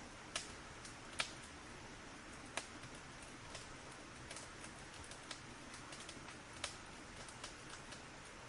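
Wood fire crackling in a fireplace: irregular sharp pops and snaps over a soft steady hiss, the loudest pop about a second in.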